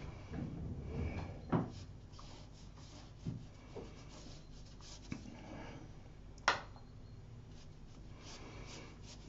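Paintbrush scrubbing and brushing across textured watercolour paper as a blue sky wash goes on, faint, with a few soft knocks and one sharper click past the middle.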